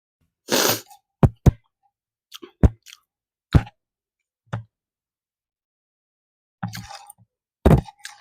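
Close-miked eating sounds: a string of short, separate mouth and chewing noises, about eight of them, with dead silence between.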